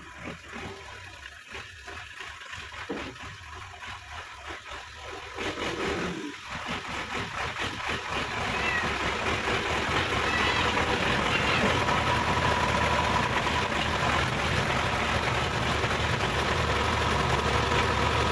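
Sonalika DI-50 RX diesel tractor engine running, growing louder over the first six seconds or so as the tractor comes closer, then running steadily and loud close by.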